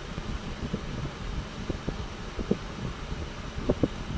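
Two chickens scuffling in a fight, irregular soft thumps and flaps, under a steady rumble of wind on the microphone. No clucking or crowing.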